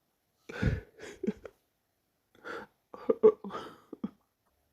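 A person hiccuping repeatedly, with short breathy gasps between the hiccups. There is a strong one about half a second in, a few smaller catches after it, and a quick cluster about three seconds in, the loudest of them.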